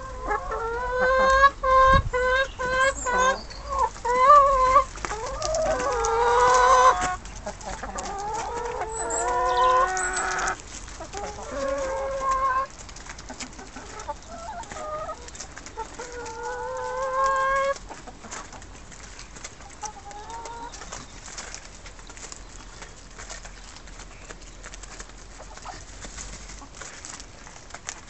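Domestic chickens clucking: a quick run of short clucks in the first few seconds, then longer drawn-out calls. The calls thin out and grow fainter after about 18 seconds.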